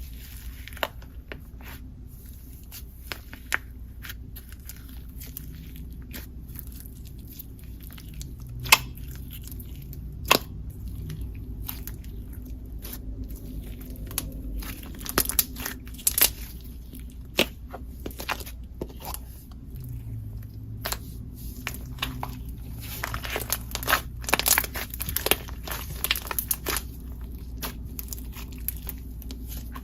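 Slime being squeezed, poked and stretched by hand, giving scattered sharp clicks and pops that crowd together into stretches of crackling about halfway through and again near the end.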